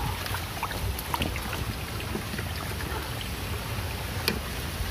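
Shallow creek water trickling and gurgling over rocks, with a low wind rumble on the microphone. A sharp click comes about four seconds in.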